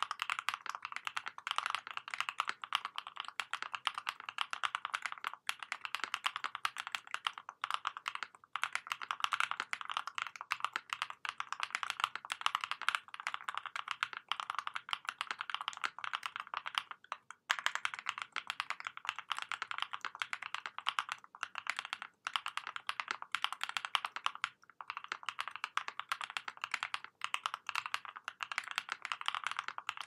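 Fast, continuous typing on a Prophet custom 60% mechanical keyboard with ThicThock Konpeitou linear switches, lubed with Krytox 205g0 and filmed, on a nylon plate. A dense stream of keystroke clacks, broken by a few brief pauses, the clearest a little past halfway.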